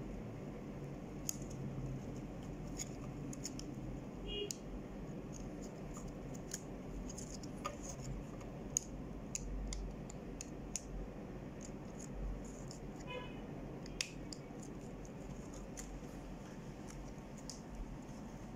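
Light, irregular clicks and scratches of hands handling small plastic and metal parts: the flat head cables being pushed onto the back of an Epson LQ-310 dot-matrix print head and the head fitted onto its carriage. A low steady hum sits underneath.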